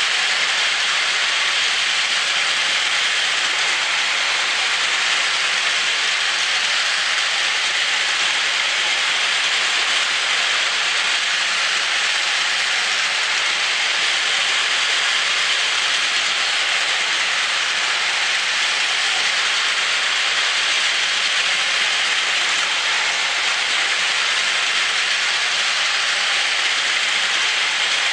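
Two battery-powered Plarail toy trains, a full-length E5 Series Hayabusa and an E6 Series Komachi, running together on plastic track: the steady, even whir of their small motors and wheels, with no change in level.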